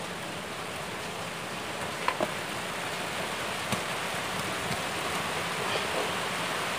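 Steady rain falling, an even hiss, with a few light clicks about two seconds in and again near four seconds.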